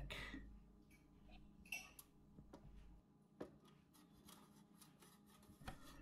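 Near silence: quiet room tone with a few faint, brief clicks.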